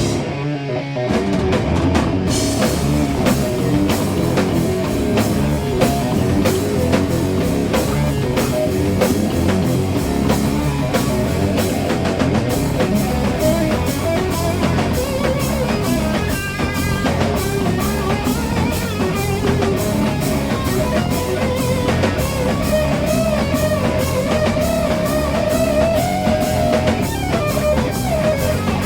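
Doom metal band playing an instrumental passage: electric guitars and drum kit at a steady, heavy beat, with a high held note wavering near the end.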